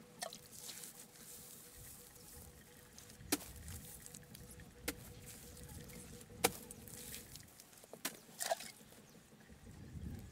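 A handful of sharp taps and knocks, about six, a second or two apart, from hand work at a mud-plastered cylinder.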